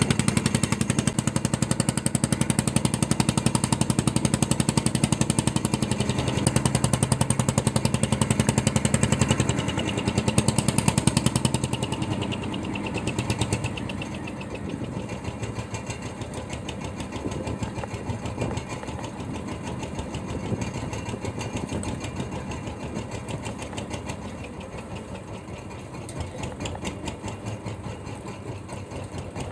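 Fishing boat's engine running with a steady rapid pulse, louder at first and easing off to a quieter, lower run about twelve seconds in.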